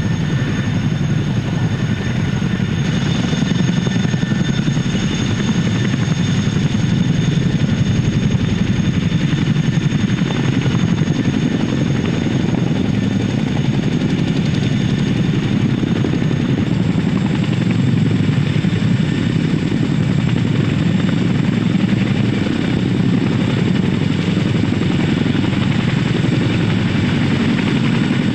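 CH-47 Chinook tandem-rotor helicopters running at close range: a steady, dense rotor noise with the high whine of the twin turboshaft engines above it. The whine shifts higher about two-thirds of the way in.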